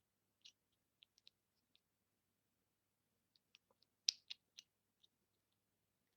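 Scattered light clicks of a child safety strap lock being handled to close it, the strap slid and its ends fitted into the catch, with the loudest pair of clicks about four seconds in.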